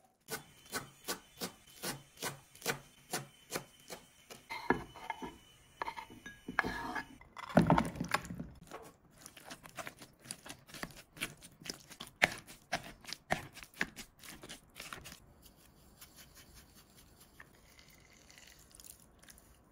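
Kitchen work: a run of sharp, evenly spaced taps about three a second, broken by a louder clattering scrape about eight seconds in, then more taps that stop about fifteen seconds in.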